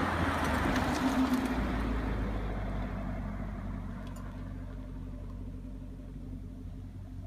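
Chevrolet Camaro SS V8 engine, louder for the first couple of seconds as the revs come down, then settling into a steady low idle.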